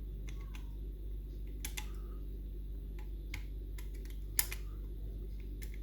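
Small, irregular clicks and scrapes of lock picks working the levers inside a Union Strongbolt lever mortice lock, with one sharper click about four and a half seconds in, over a steady low hum.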